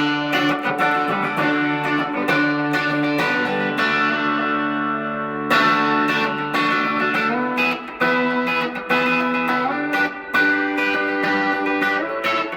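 Electric guitar, a Reverend Eastsider S, played through an amp on its bridge pickup alone (a Fender Tex-Mex single coil) for a Telecaster tone. A chord is left ringing for about five seconds, then a run of picked notes and chords follows.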